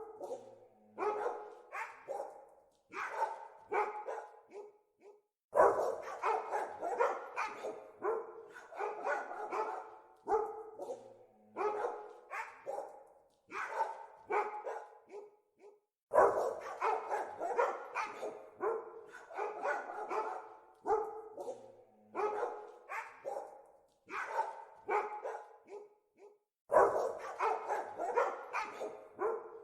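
Dogs barking in quick volleys of several barks each, broken by short pauses, with louder bursts of barking starting roughly every ten seconds.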